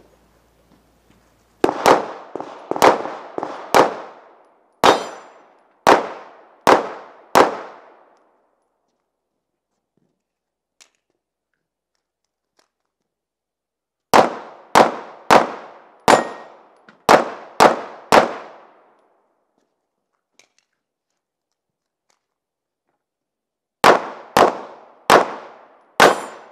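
Pistol fired in rapid strings: a volley of about six quick shots, four more evenly spaced, then after a pause of about six seconds a string of about eight shots, and near the end another quick string of about five.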